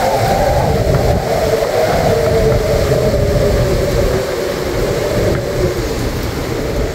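Storm-force wind howling across a boat's cockpit, a loud steady howl drifting slightly lower in pitch. Under it is heavy low rumble from wind buffeting the microphone.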